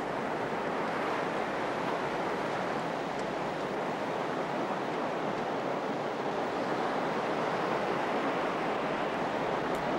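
Ocean surf breaking on a beach: a steady wash of waves with no distinct individual crashes.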